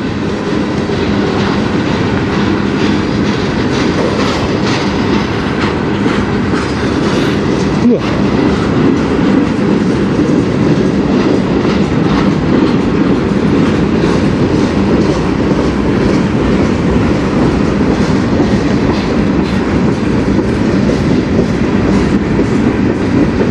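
Freight cars of a CN manifest train rolling past in a steady rumble, with the clickety-clack of steel wheels over rail joints.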